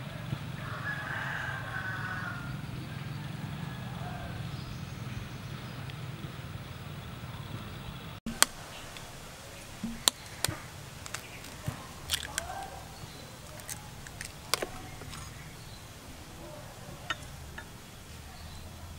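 Kitchen handling sounds over a steady low background rumble: a knife slicing hard-boiled eggs and tapping the wooden chopping board, then, from about eight seconds in, a run of sharp clicks and taps as an egg is cracked into a ceramic bowl and a metal spoon knocks against the bowl and an opened can.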